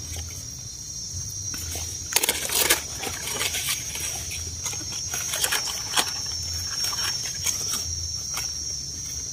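Hands rustling through dry leaf litter and a knife scraping the soil-caked stem base of a yellow Amanita mushroom as it is dug out, the loudest rustle about two seconds in. A steady high insect drone runs underneath.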